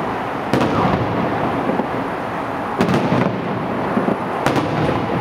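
Aerial firework shells bursting: three sharp booms about two seconds apart over a steady low rumble from the display.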